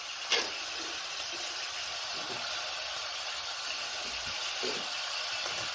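Ghevda (flat bean) pods sizzling in hot oil in a steel pot, a steady hiss, with one short knock about a third of a second in.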